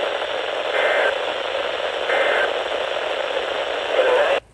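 Radio static hiss from a weather-radio receiver, with two short two-tone digital data bursts about a second and a half apart, like EAS/SAME end-of-message bursts heard through the noise. The hiss cuts off suddenly near the end.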